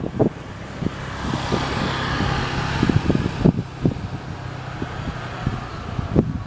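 Jet engine noise from a Boeing 737-400's CFM56 engines, swelling into a loud hiss early on and easing back to a steady rumble, with wind buffeting the microphone.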